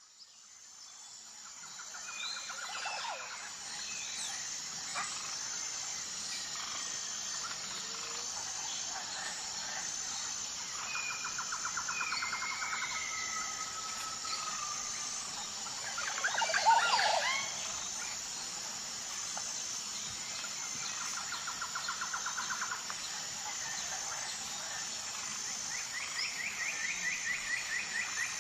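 Tropical forest ambience: a steady high-pitched insect drone with an even pulse under scattered bird calls and several rapid trills. A louder call stands out a little past the middle. The sound fades in at the start.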